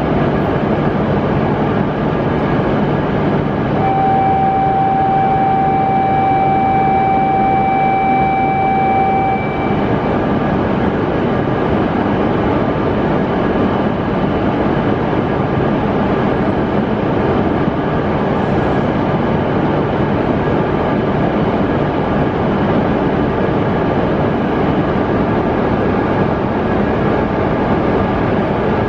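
A Shinkansen trainset standing at the platform, giving a steady whir and hum of its running equipment. A few seconds in, a steady electronic beep sounds for about five seconds and stops.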